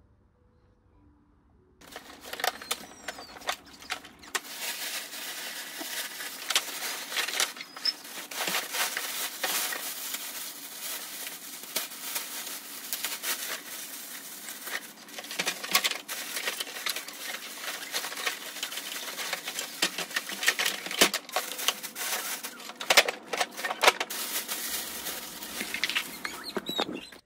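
Thin plastic diaper-pail liner bag being handled, crinkling and rustling loudly with many sharp crackles, starting about two seconds in.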